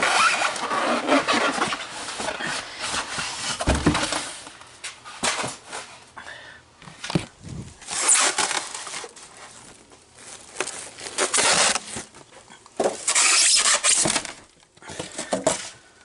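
Cardboard box and packaging being opened by hand: irregular bursts of rustling, scraping and tearing, with a dull thump about four seconds in.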